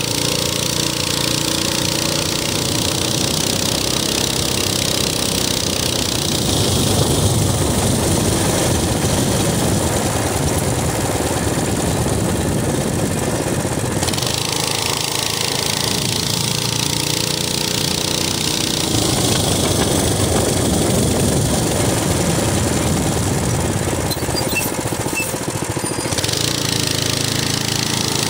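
Minibike's small engine running steadily while riding along, its pulsing exhaust mixed with wind noise. The engine note shifts a few times as the throttle changes.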